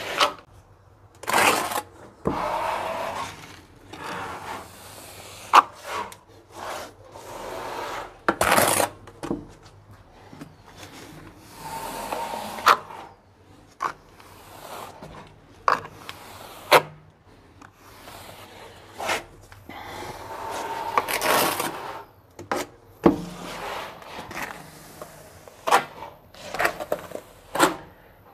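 Flat steel trowel scraping and spreading cement tile adhesive over a plastered wall, in irregular strokes a second or two long, with sharp clicks of the trowel against the wall between strokes.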